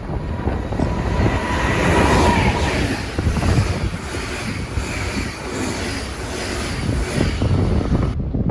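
A train passing close by, its wheels running on the rails in a loud, steady rush.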